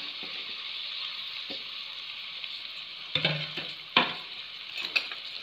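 Sliced onions sizzling in hot ghee in an aluminium pressure cooker, a steady frying hiss. A few sharp knocks come about three and four seconds in.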